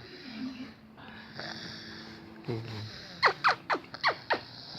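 Soft snoring from a sleeper lying on a lap, with a run of five quick high-pitched falling chirps a little past halfway through, louder than the snoring.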